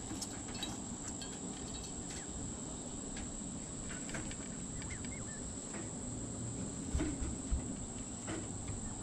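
Insects droning steadily at one high pitch, with scattered small clicks and a couple of soft thumps about seven seconds in.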